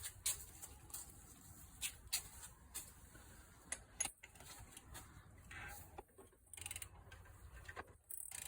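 Scattered faint metallic clicks and clinks of a wrench working on the crankshaft bolt as the Audi S6 engine is turned over by hand.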